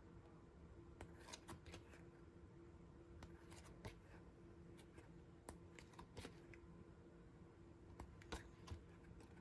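Faint scattered rustles and soft clicks of photo book pages being turned by hand, over quiet room tone.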